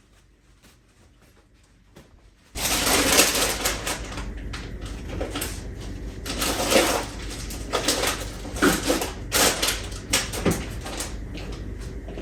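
Fairly quiet at first. Then, about two and a half seconds in, irregular clattering, knocking and rustling starts as things in a refrigerator are handled, over a low steady hum.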